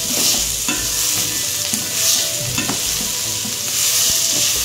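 Chopped onions and carrots sizzling in hot oil in a stainless steel pot as a spatula stirs them, with a steady sizzle and repeated scraping strokes against the pot.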